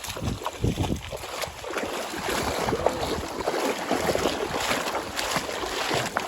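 Moving river water with wind buffeting the microphone, and scattered knocks and scuffs.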